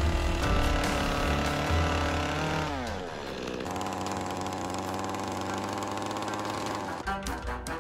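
Small chainsaw running at high speed, then dropping in pitch about three seconds in and running on steadily at a lower speed while carving wood. Near the end it cuts off and music begins.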